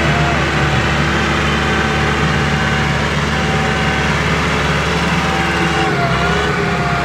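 Kubota RT140 single-cylinder diesel engine running steadily, its pitch dipping briefly about six seconds in.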